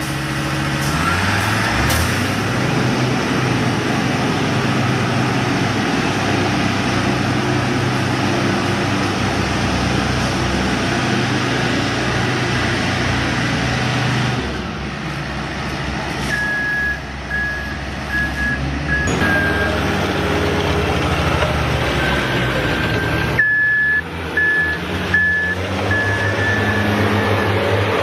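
Heavy road-construction machinery running with a steady engine hum, its sound changing abruptly twice. Short repeated reversing-alarm beeps come in past the middle and again near the end.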